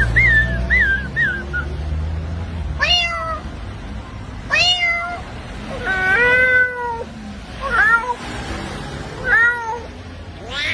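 A man imitating a cat with his voice: a few short high chirps, then a string of about five falling meows one to two seconds apart, one of them longer.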